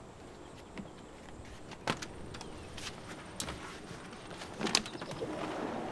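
A sliding glass patio door being handled and slid: a handful of soft clicks and knocks spread through.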